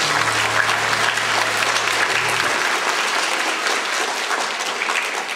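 A crowd of children applauding: dense, steady clapping that eases slightly near the end, with a low steady tone underneath for the first two and a half seconds or so.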